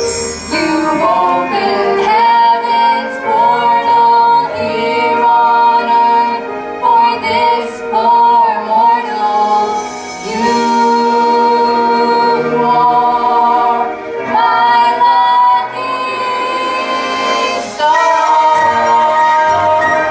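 A girl singing a slow stage-musical song solo, holding long sustained notes with short breaks between phrases.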